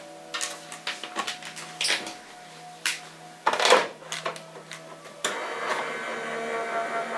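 Clicks and knocks of cutting plates being handled and slid onto the platform. Then, about five seconds in, the Sizzix Switch Plus electric die-cutting machine's motor starts and runs steadily as it tries to feed the plate stack, which is too thick with the crease pad added to go through.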